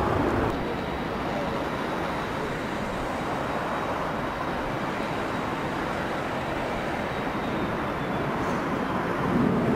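Steady jet noise from a taxiing Boeing 787-9's Rolls-Royce Trent 1000 engines at idle, heard across the airfield as an even rush with a faint high whine. It swells slightly near the end.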